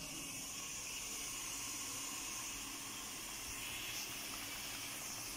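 Steady hiss from a pot of potato kofta curry cooking on the stove.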